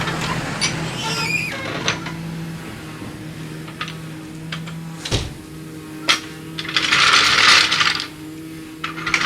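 Metal clinks and knocks from a trolley jack and tools being handled under a car, over a steady low hum. There is a louder rattling clatter about seven seconds in.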